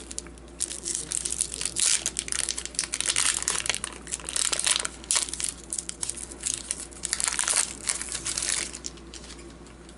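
Hockey card pack wrapper being torn open and crumpled by hand: a quick run of crinkling, crackling rustles that thins out near the end.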